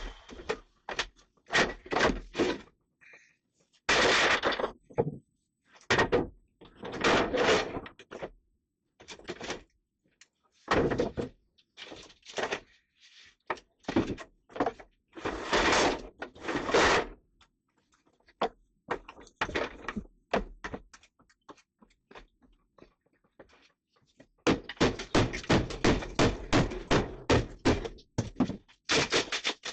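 Rotten wood being broken out by hand: a series of separate knocks, thuds and cracking strikes, then a rapid run of many blows near the end.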